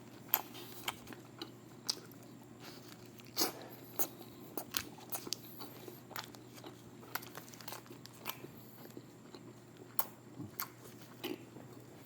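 A person eating close to the microphone: irregular crunchy bites and chewing, with sharp crunches every second or so.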